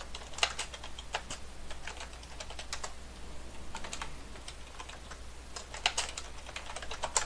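Typing on a computer keyboard: quick, irregular keystrokes as commands are entered, with short pauses between bursts.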